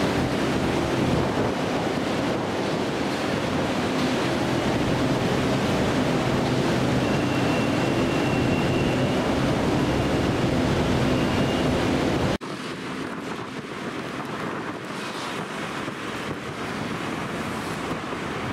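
Elevated rail station platform ambience: a steady noisy hum with a few low steady tones. It cuts off abruptly about twelve seconds in to a quieter open-air city background with wind on the microphone.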